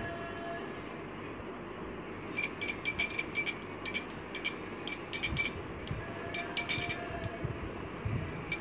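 A thin stick clinking against a glass dessert bowl as red colouring is stirred into a white slime mixture: a scattered run of light, ringing clinks from about two and a half seconds in until about seven seconds.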